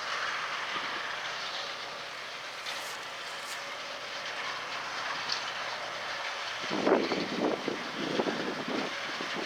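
John Deere S680 combine harvester running in a corn field, a steady mechanical noise. From about two-thirds of the way in, wind buffets the microphone with irregular low rumbles.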